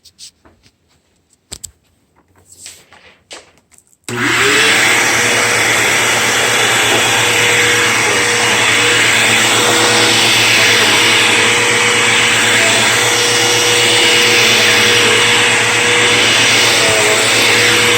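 Bissell CleanView Helix upright vacuum cleaner: a few clicks, then it is switched on about four seconds in, the motor spinning up with a brief rising whine before running steadily and loud.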